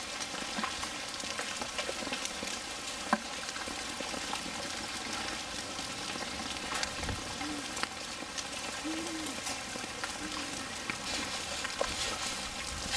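Hailstorm: hail and rain falling steadily, a constant patter on the ground and on water with scattered sharper ticks of individual stones.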